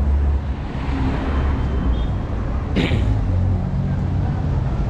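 Vehicle engine running close by amid city street traffic, a steady low hum, with one brief sharp noise about three seconds in.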